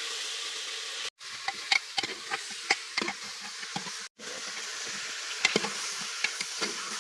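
Chicken curry frying in a pan with a steady sizzle, while a spoon clicks and scrapes against the pan as it is stirred. The sound cuts out for a moment twice.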